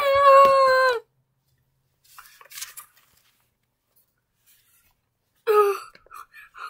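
A child's voice holding one long, high, drawn-out wailing vowel for about a second, then near silence with a few faint handling noises, and a short vocal sound near the end.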